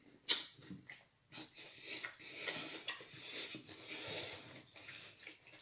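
A man chewing a mouthful of deep dish pizza close to the microphone: a sharp smack near the start, then wet mouth clicks over breathing.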